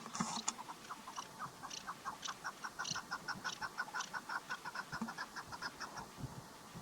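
Female chukar partridge calling: a fast, even run of short clucking notes, about six a second, with a louder burst at the start, stopping near the end.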